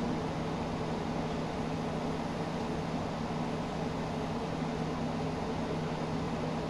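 Steady hum and hiss of room ventilation, unchanging throughout.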